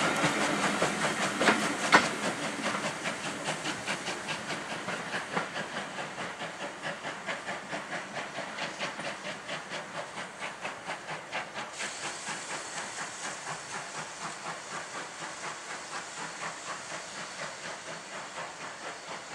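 GWR-design 8750-class 0-6-0 pannier tank steam locomotive working a passenger train, its exhaust beating in a steady, even rhythm over a steam hiss, fading steadily as the train draws away. A higher hiss comes up about twelve seconds in.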